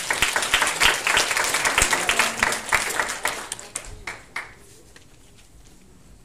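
Audience applauding, loud at first and dying away about four and a half seconds in.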